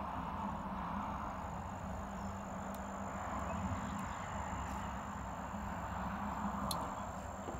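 Steady background hum and hiss, with a thin, high, steady whine that starts about a second in.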